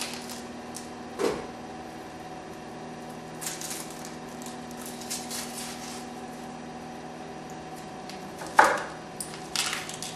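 Dry, papery yellow-onion skin crackling as it is peeled off by hand, then a knife knocking twice on a wooden cutting board near the end as the onion is cut. A steady low hum runs underneath.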